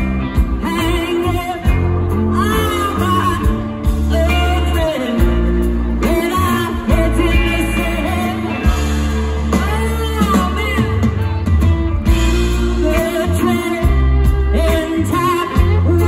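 Rock band playing live with a singer over guitars, drums and a heavy low bass.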